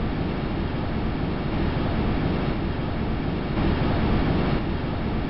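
Wind on another world recorded by a space probe and played back as a steady, deep rushing noise with a slight unsteady flutter.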